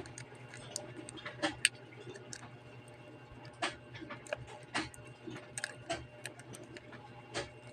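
Irregular light clicks and taps, a dozen or so spread unevenly, over a steady low hum: small tools and parts being handled during a smartphone screen repair.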